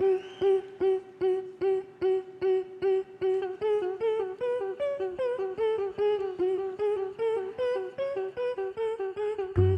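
Beatboxers' hummed vocal line: a pitched note pulsed in short, even beats nearly three times a second, mostly on one pitch with a few notes stepping higher in the middle. A deep bass comes in near the end.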